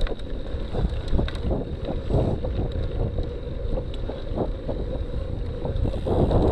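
Wind buffeting the camera's microphone as a cyclocross bike rolls along a dirt track, with a steady tyre rumble and scattered clicks and rattles from the bike over bumps.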